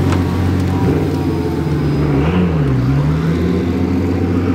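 A Pagani hypercar's Mercedes-AMG V12 running steadily at low revs, with a small rise and fall in pitch about two and a half seconds in.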